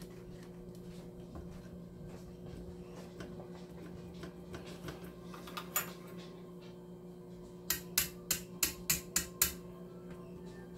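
Light handling noises on a workbench: a single sharp click about six seconds in, then a quick run of about seven sharp clicks near the end, over a steady low electrical hum.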